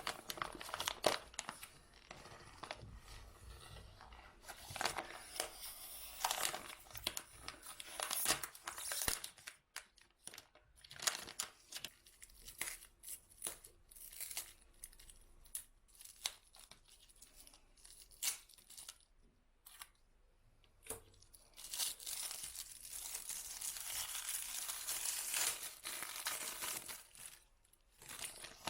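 Rustling, crinkling and tearing of material being handled, in many short strokes, with a longer steady rustle about three quarters of the way through.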